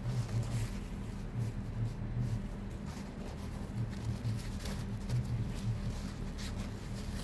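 Scissors snipping through a folded paper towel, a few short, soft snips with paper rustle spread through, over a steady low hum.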